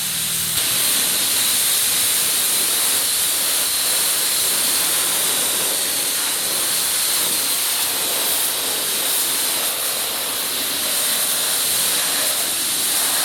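Coin-operated car wash pressure wand spraying a steady, hissing high-pressure jet of water on the rinse setting.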